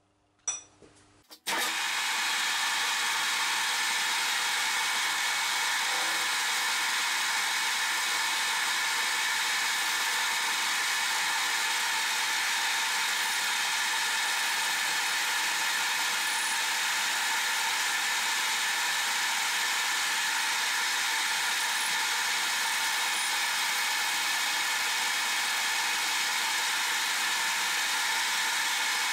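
Metal lathe running steadily while a cutting tool turns down the end of a threaded stud, a constant machine whir with the hiss of the cut. It starts abruptly about a second and a half in, after a few faint clicks.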